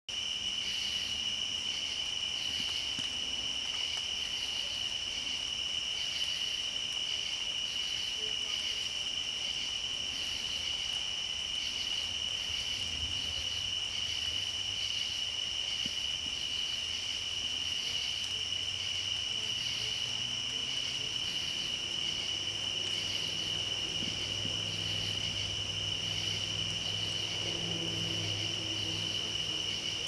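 Late-summer night insect chorus: a steady, unbroken high trill of crickets with a rhythmic pulsing insect call repeating over it. A faint low hum joins in during the last third.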